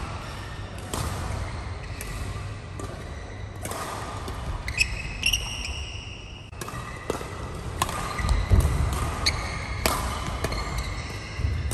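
Badminton rally: sharp racket strikes on the shuttlecock every second or two, with court shoes squeaking in short high chirps on the court mat and footfalls as the players move.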